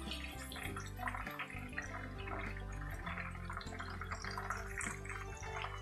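Chicken pieces deep-frying in hot oil, a steady bubbling and crackling, as they are lifted out with a wire strainer. Background music runs underneath.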